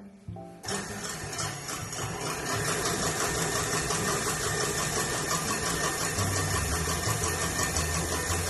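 Electric mixer beating frothy egg whites at high speed. It comes on loud less than a second in and then runs steadily.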